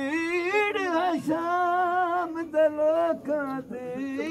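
A voice singing a noha, a Shia mourning lament, in long held notes that waver in pitch and slide from one to the next.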